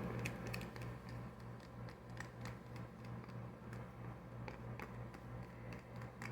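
Faint, scattered light clicks and taps, a few seconds apart at most, over a steady low hum.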